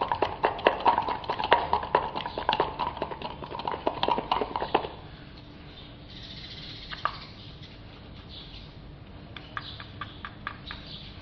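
A wooden stick stirring catalysed resin in a cut-down plastic bottle, knocking fast against the bottle's sides several times a second, then stopping about five seconds in. A few light clicks follow.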